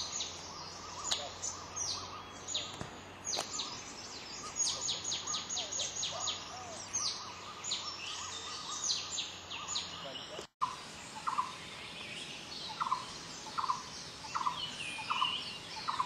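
Wild forest birds calling. For about the first ten seconds, many quick, high notes slur downward one after another. After a brief break about two-thirds of the way in, one bird repeats a short, lower note about one and a half times a second, while higher calls go on faintly behind it.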